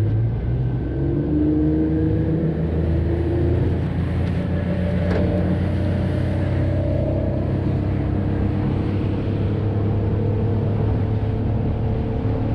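Motorboat running at speed across calm water: a steady engine hum mixed with wind and hull-on-water noise. The engine note rises over the first few seconds, then holds steady.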